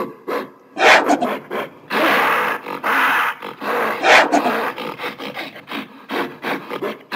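Gorilla vocalizing in a run of short, gruff calls, with a longer call of about two seconds starting around two seconds in.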